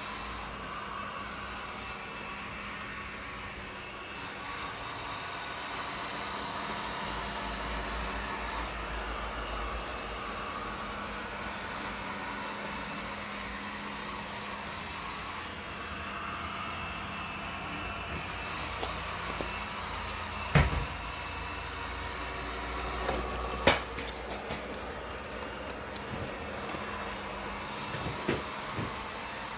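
Ecovacs Deebot Ozmo 950 robot vacuum-mop running, a steady motor and fan hum. A few sharp knocks come in the second half.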